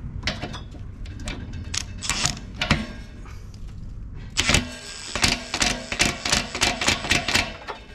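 Cordless Makita impact wrench tightening a new anode rod into the top of a hot water tank, rattling in short trigger bursts: a few scattered bursts at first, then a quick run of bursts from about four and a half seconds in until near the end.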